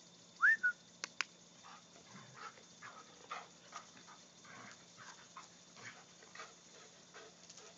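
Airedale terrier giving one short, high, rising whine about half a second in, followed by two sharp clicks, then faint irregular scuffling as she plays with a stick on the grass.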